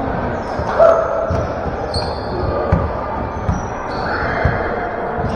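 A basketball being dribbled on a sports-hall floor, with irregular thuds. Sneakers squeak briefly and repeatedly on the court, and a short shout from a player comes about a second in.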